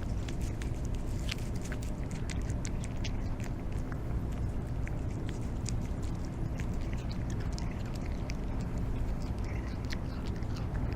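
Stray cats chewing grilled hagfish: many short, wet, sharp clicks of eating over a steady low rumble.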